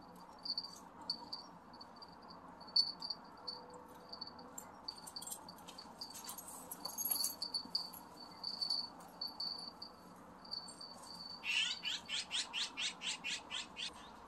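Small birds chirping: short high chirps repeated at irregular intervals, then near the end a fast run of about a dozen notes, some five a second.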